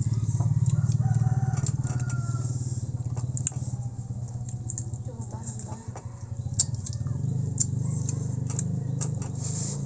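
A small engine running steadily with a low, pulsing drone that eases briefly about six seconds in and picks up again, with scattered light clicks over it.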